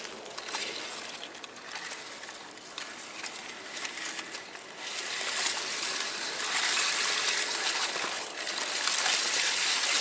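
Tall grass rustling and brushing against a camera carried low through it, a steady crackly hiss that gets louder about halfway through.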